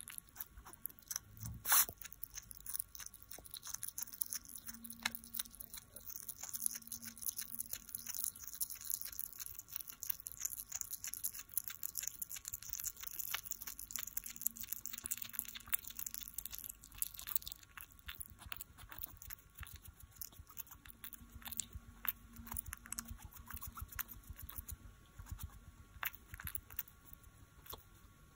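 A hedgehog chewing and licking a boiled quail egg: a steady run of small, quick clicks from its jaws and tongue, with one louder click about two seconds in.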